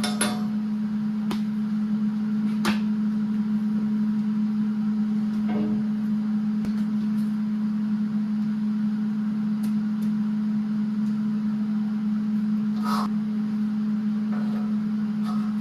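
Steady low electrical or machine hum at one pitch, with a few sharp clicks and knocks scattered through it.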